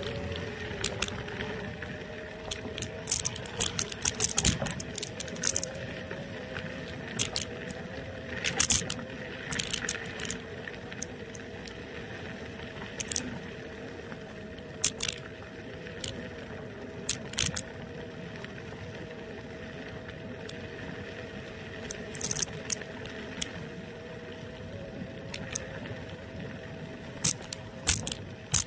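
Niu KQi2 electric scooter's motor whining at a steady pitch, rising slightly at first and then holding as it cruises. Frequent sharp rattles and clicks come in as it rolls over the uneven lane.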